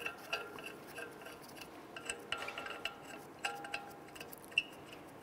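Steel hub bolts clinking lightly against the wheel hub and steering knuckle as they are threaded back in a few turns by hand. The clinks are scattered and each rings briefly, with a sharper tick about four and a half seconds in.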